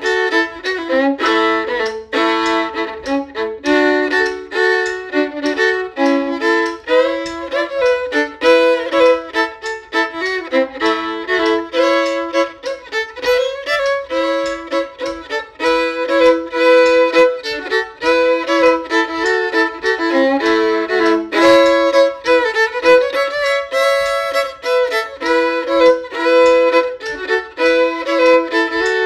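Solo fiddle playing a newgrass fiddle tune in A major: a steady run of bowed notes, often sounding two strings at once.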